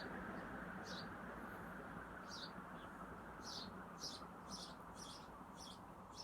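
Northwest Envirofan heavy-duty Gold Line industrial ceiling fan running on high: a steady rush of moving air with a faint motor hum. Short high chirps of small birds come through over it, more often toward the end.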